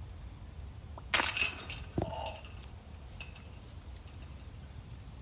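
A disc golf disc hitting the metal chains of a disc golf basket about a second in: a loud metallic clank and chain jangle that rings for about a second, followed by a few smaller rattles.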